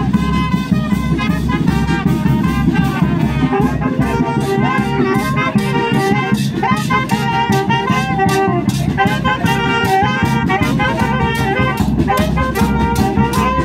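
Street brass band playing a tune: saxophones and trumpet over a bass drum and cymbals keeping a steady beat.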